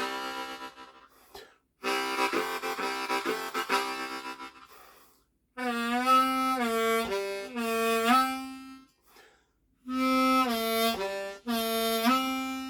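Low F Hohner Manji harmonica with vented cover plates being played: two chordal phrases, then single notes bent down and back up, with short pauses between phrases. Its tone is slightly raspier, which the player puts down to the vented covers.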